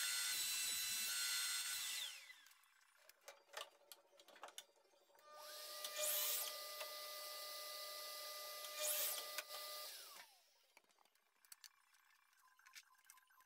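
A cordless drill running, winding down about two seconds in. Then a Bosch mitre saw's motor starts with a steady whine, the blade cuts through wood twice, about three seconds apart, and the saw spins down. Small clicks and knocks of handling between and after.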